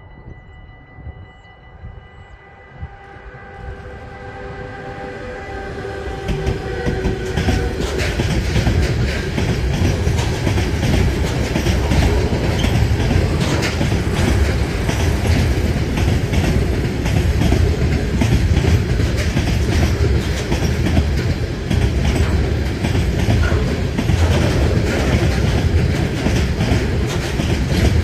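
Freight train of pressurised tank wagons passing close. First comes a held tone of several notes as the locomotive approaches, which stops about eight seconds in. From there a loud continuous rumble and clickety-clack of the wagons' wheels runs on.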